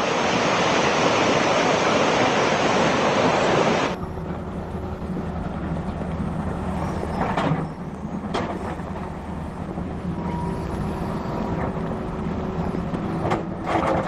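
Loud rushing noise, then, after an abrupt change about four seconds in, an excavator's diesel engine running steadily with a few sharp knocks, likely rock or the bucket striking.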